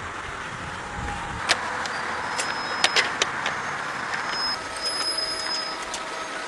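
Farm machinery running steadily, with scattered sharp clicks and knocks, several in quick succession in the first half.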